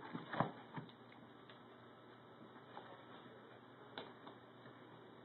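Faint taps and scratches of cats' paws and claws on a cardboard box: a few in the first second, one more about four seconds in.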